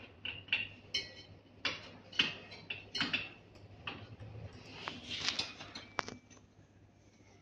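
Irregular light metallic clicks and taps of a small hand tool and adjustment knobs against the printhead mounting bracket of a UV inkjet printer, one tap about six seconds in ringing briefly.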